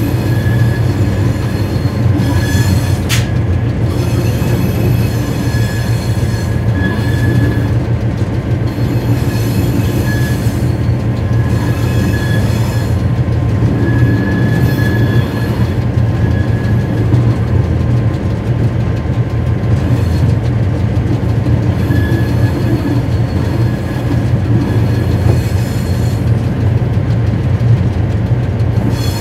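Ex-CIE A class diesel locomotive A39 running light, heard from inside its cab: a steady, loud low drone from its General Motors diesel engine, with high thin wheel squeals coming and going as it runs through curves, and one sharp click about three seconds in.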